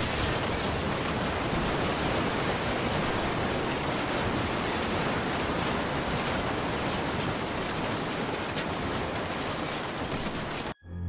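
Loud steady rushing noise, spread evenly from low to high, that starts with a sharp hit and cuts off suddenly near the end: a destruction sound effect under toy buildings collapsing.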